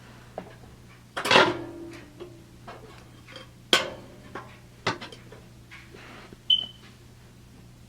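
Gas water heater's pilot controls being worked by hand: a series of sharp metallic clicks and clanks, four louder ones among lighter ticks. The first comes about a second in and rings briefly.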